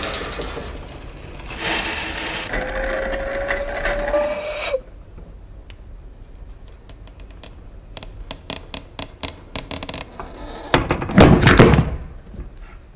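Liquid pouring into a vessel, with a faint tone rising as it fills, which cuts off suddenly about five seconds in. Then scattered small clicks and ticks, and a louder rough scraping noise about a second long near the end.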